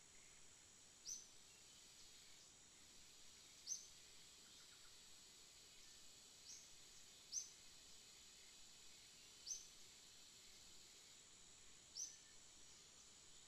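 Faint forest ambience: a steady high insect drone, with a bird's short high chirp repeated six times at intervals of about two to three seconds.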